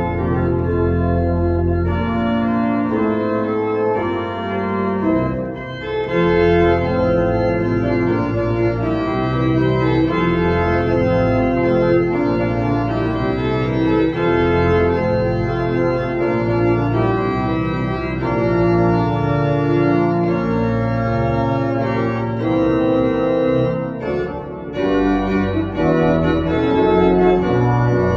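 Church pipe organ playing a Motown pop medley, sustained chords over a moving bass line.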